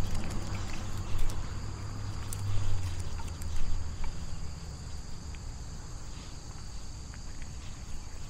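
Insects chirring steadily in high, even tones. A low rumble and a few soft knocks come in the first three or four seconds.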